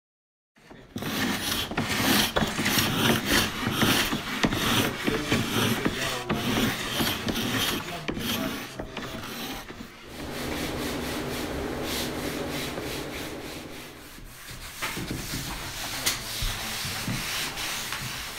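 Wood of a cedar-strip canoe hull being scraped and sanded: repeated rasping strokes, turning steadier with a low hum about ten seconds in.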